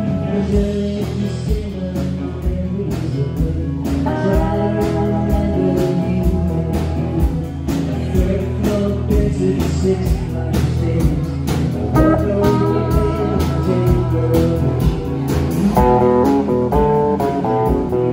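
Live rock band playing: electric guitars carrying a melody line over a drum kit keeping a steady beat.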